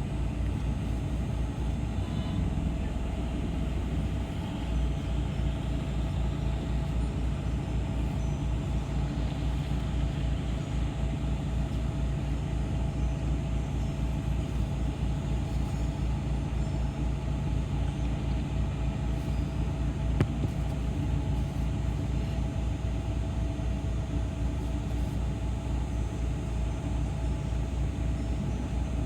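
City bus running along the road, heard from inside the cabin: a steady low rumble of engine and road noise with a faint hum, and one sharp click about two-thirds of the way through.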